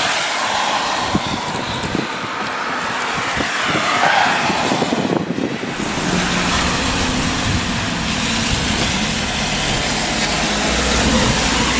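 Rain pattering on the clear windscreen and canopy of an e-bike rain cover while riding, mixed with wind and the hiss of tyres on a wet road. A deeper low rumble joins about halfway through.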